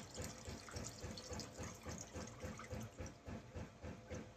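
Leftover fuel being poured from a chainsaw's fuel tank into a bowl of cleaning fluid, glugging and splashing in an uneven run of short pulses, about three a second.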